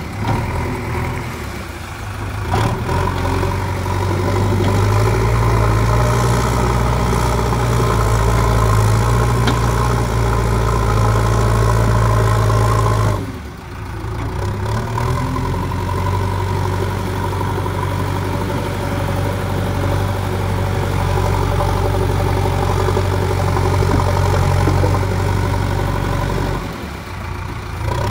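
JCB 3DX backhoe loader's diesel engine running steadily under load while the front loader bucket works. The engine sound drops briefly about thirteen seconds in and again near the end, then comes back up.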